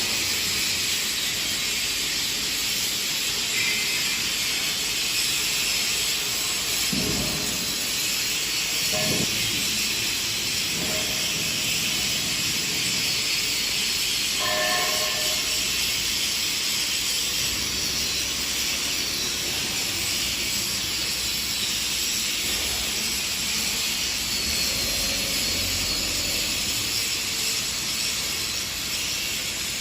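Steady, even hissing noise at a constant level, with a few brief faint tones near the start and about halfway through.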